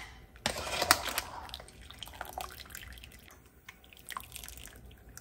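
Water dripping and splashing back into a pot as razor clams are lifted out of their blanching water with metal tongs, with a burst of splashing about half a second in and scattered light clicks of the tongs.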